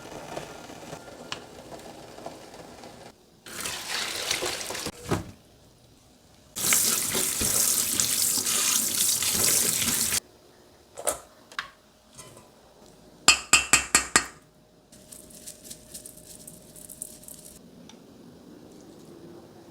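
Water running from a kitchen tap into a sink, twice: briefly, then for about three and a half seconds. A quick run of five or six sharp knocks follows.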